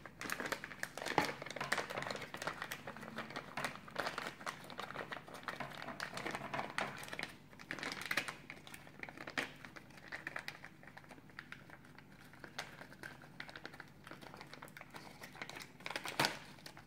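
Plastic packaging bags crinkling as they are handled, in irregular crackles that are busier in the first half and thin out later, with a louder crackle near the end.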